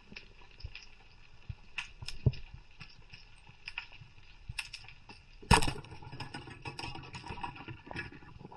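Underwater sound picked up through a diver's camera housing: scattered crackling clicks over a faint hiss, with one sharp knock about five and a half seconds in, followed by a rougher rushing noise.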